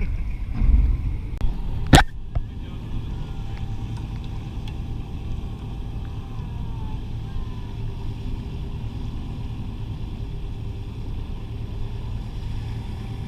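Steady low rumble of a boat's engine running, with one sharp knock about two seconds in.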